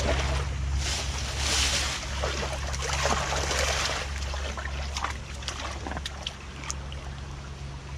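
Water splashing and rushing, loudest between about one and four seconds in, over a steady low rumble of wind on the microphone.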